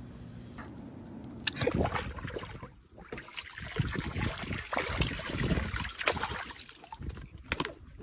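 Water splashing and trickling in irregular bursts, with scattered clicks, starting about a second and a half in.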